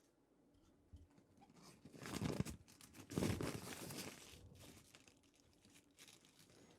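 A man sneezing: a rising breathy build-up, then two loud bursts about a second apart.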